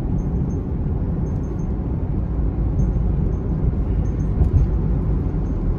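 Steady low rumble of a car driving on a rain-wet highway, heard from inside the cabin: road, tyre and engine noise, with a brief knock about four and a half seconds in.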